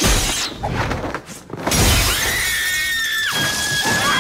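Film soundtrack action sound effects: crashing and glass shattering, then from about halfway through a long high-pitched yell held to the end.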